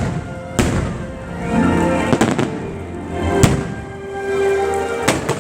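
Fireworks shells bursting in sharp, echoing bangs, about one every second or so with a quick cluster near the end, over loud show music.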